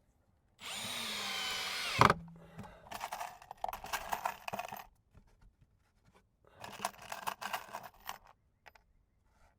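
Power drill driving screws into a wooden cover board. A steady motor whine runs for about a second and a half and ends in a sharp crack, then come two shorter, rougher runs with rapid clicking.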